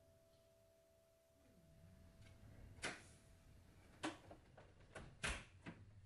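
The last note of a digital piano dies away, then several sharp clicks and knocks come about three to six seconds in as the keyboard is gripped and moved.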